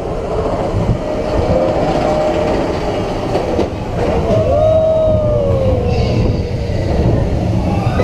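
Expedition Everest roller coaster train rolling fast along its steel track, a continuous rumble and clatter of the wheels, with a squeal that rises and falls about halfway through.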